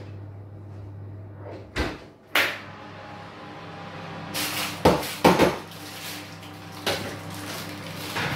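Oven door being opened and shut with several knocks and clatters as a banana bread loaf tin is put in to bake; the loudest knocks come in a quick cluster about five seconds in. A low steady hum runs underneath.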